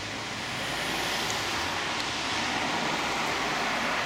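City street traffic: a steady rush of passing cars' tyres and engines, growing louder over the first second and then holding.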